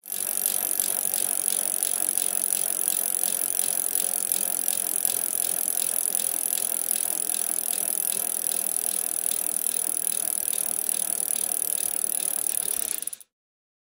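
Bicycle making a rapid, even ticking over a steady hiss; it cuts off abruptly near the end.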